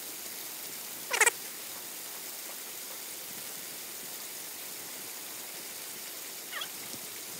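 A short, loud animal call with a wavering pitch about a second in, and a fainter call falling in pitch near the end, over a steady background hiss.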